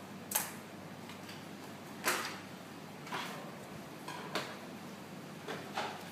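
Small craft tools and a glue bottle being handled and set down on a tabletop: a handful of light, separate knocks and clicks.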